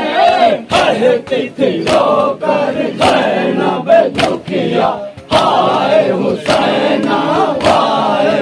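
A crowd of men chanting a Shia nauha lament in unison while doing matam, beating their chests with open hands. The sharp slaps fall in a steady beat, about two a second.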